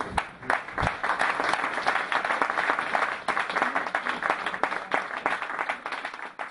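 Live audience applauding, a dense patter of many hands clapping that dies away near the end.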